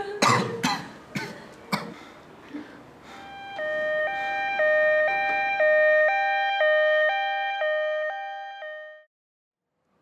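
A man coughing and choking in short, harsh fits while clutching his throat. Then a two-note electronic tone fades in, alternating high and low about twice a second like a hi-lo siren, and fades out near the end.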